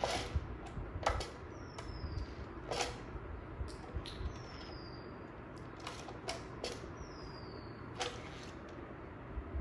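A baby's hand slapping and patting the plastic body of a toy rock crawler truck: irregular sharp taps, some close together. A faint, short, high falling chirp comes three times, every two to three seconds.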